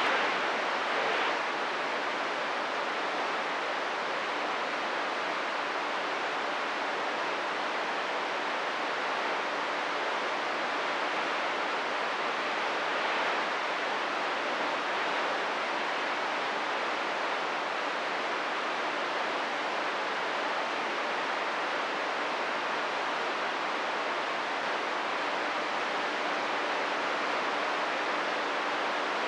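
CB radio receiver static: a steady hiss of open-squelch noise between transmissions, with a faint low hum under it.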